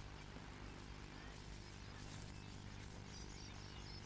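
Faint steady low hum with a light background hiss, and a few faint high bird chirps about three seconds in.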